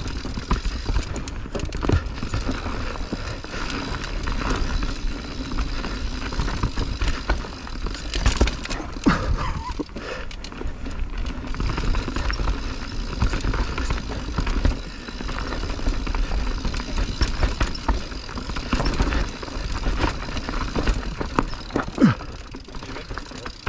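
Mountain bike being ridden down a rough trail: tyre noise on dirt with frequent knocks and clatter from the bike over the terrain. A heavy rumble sits on the action camera's microphone.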